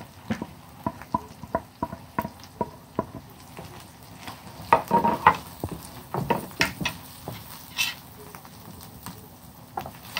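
Wooden spatula stirring chopped onions and dry spices in oil in a nonstick frying pan: sharp taps and scrapes of the spatula on the pan over a faint sizzle, busiest about halfway through.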